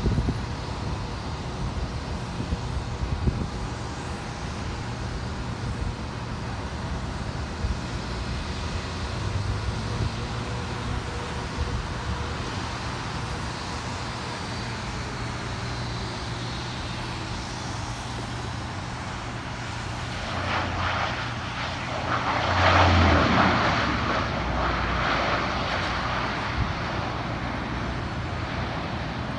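De Havilland Dash 8-400 turboprop airliner landing: a steady drone of its engines and propellers, which swells louder about 21 to 26 seconds in.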